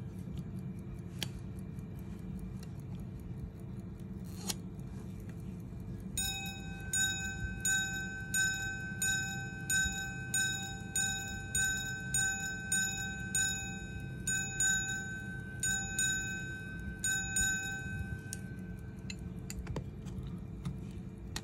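Swiss quarter-repeater pocket watch chiming: its hammers strike the gongs about a dozen times at an even pace, and after a short pause give the quarters as quicker pairs of notes, each strike ringing clearly. Before the chiming the watch ticks, with a couple of sharp clicks from the repeater mechanism.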